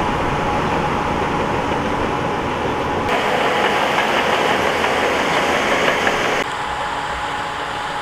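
Heavy dump truck's diesel engine running, a steady rumble with a thin high tone over it. The sound shifts abruptly in level and tone about three seconds in, and again about six and a half seconds in.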